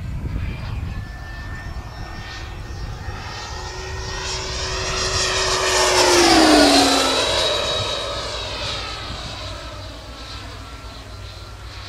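Schübeler DS-77 HST electric ducted fan of an RC F/A-18 model jet making a fast pass: the whine and rush build up and are loudest about six and a half seconds in. Its pitch drops as the jet goes by, and then the sound fades away.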